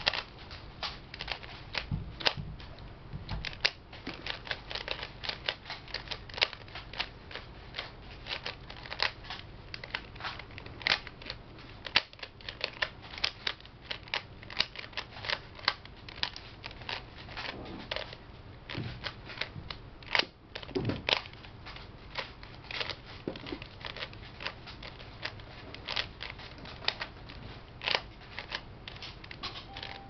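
A Rubik's Cube turned quickly by hand: a continuous stream of irregular plastic clicks and clacks, several a second, as the layers snap round, with an occasional duller knock.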